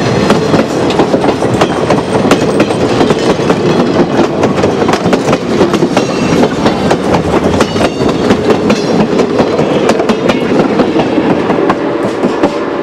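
Railway passenger cars rolling past at close range: steel wheels rumbling on the rails with a run of sharp clicks and clacks as they cross the rail joints. The noise eases near the end as the last car goes by.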